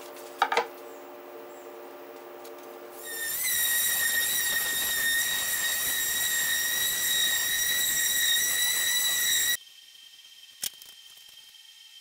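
An electric random orbit sander running over wood boards: a steady high-pitched whine over a hiss, starting a few seconds in and cutting off suddenly near the end. Before it there is a lower steady hum with two sharp clicks.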